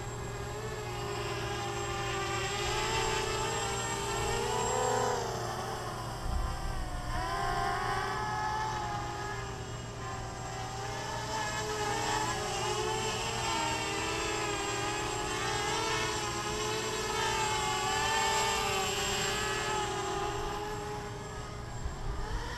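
Tarot 250 quadcopter's Emax brushless motors and propellers whining in flight, the pitch rising and falling as the throttle changes.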